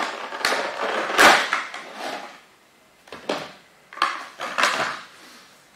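Cardboard box and paper contents being handled: rustling and scraping for about two seconds, then a few short scuffs and taps as the paper inserts are pulled out and leafed through.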